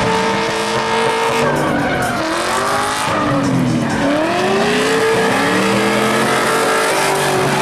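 Two drift cars in a tandem run: their engines rev hard at high rpm, the notes dipping and climbing again several times as the drivers work the throttle. Over them runs the spinning rear tyres' squeal and hiss.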